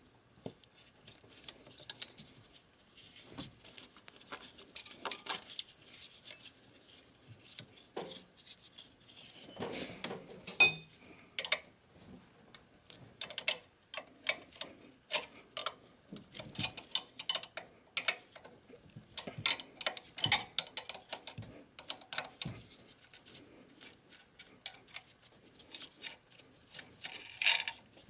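Hand tools and small metal engine parts clicking and clinking irregularly while the fuel rail fittings and connectors on a Sprinter diesel engine are undone by hand.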